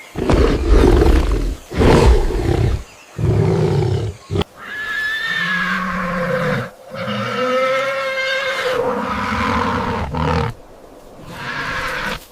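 Animal calls: a few short, rough roars in the first four seconds, then two long wavering cries of about two seconds each, and a shorter one near the end.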